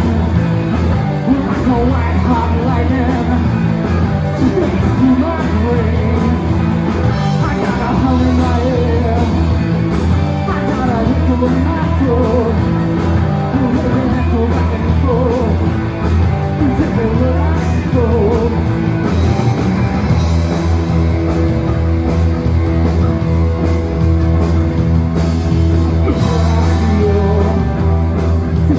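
Live rock band playing: electric guitars, electric bass and drum kit, with a lead vocal over them. The sound is loud and continuous, with a heavy bass line.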